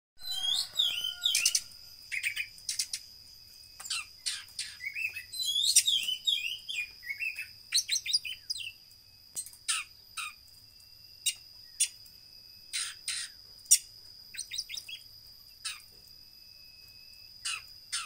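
Caged oriental magpie-robin of the 'koci' kacer type singing: quick phrases of varied whistles, chirps and fast trills, packed closely for the first eight seconds or so and then coming in spaced-out bursts. A thin steady high-pitched tone runs underneath.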